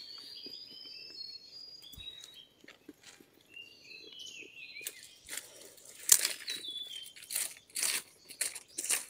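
Small birds chirping in short whistled calls for the first few seconds, then loud, irregular crunching and rustling of dry leaf litter and brush from about five seconds in, as a man steps through the undergrowth and crouches down in it.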